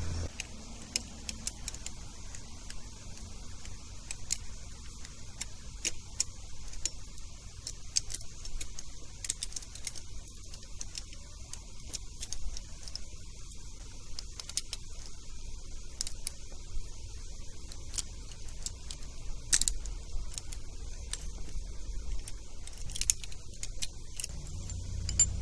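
Scattered light metallic clinks and ticks of hand tools and BMX bike parts being handled as the crank and sprocket are fitted, a few clinks standing out louder than the rest.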